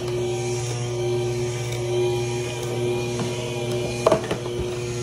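Electric juicer's motor running with a steady hum as it crushes ginger, with a few sharp cracks about four seconds in.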